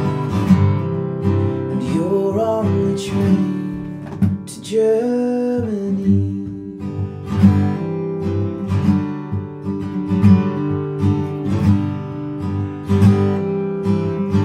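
Acoustic guitar strummed in a steady rhythm, with a man singing a line ending on "Germany" from about two to six seconds in.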